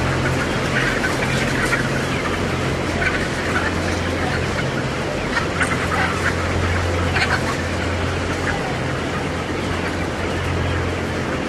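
A house full of caged laying hens clucking and calling, many short overlapping calls, over a steady low machine hum.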